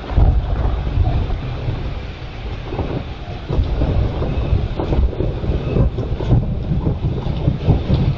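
Thunder rolling in a long, loud low rumble that swells again about halfway through.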